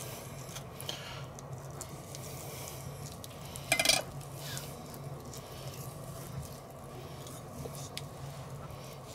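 Small knife cutting and scraping the bone out of a raw chicken thigh on a wooden cutting board: quiet cuts and faint clicks, with one short, louder scrape just under four seconds in. A steady low hum runs underneath.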